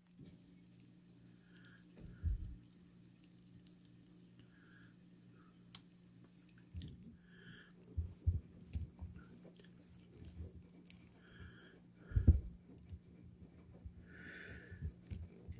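Handling noise from a plastic action figure and its small hatchet accessory: soft clicks, taps and rubbing of plastic parts as the hatchet is fitted into the figure's hand and the figure is posed, with the loudest knock about twelve seconds in. A faint steady hum runs underneath.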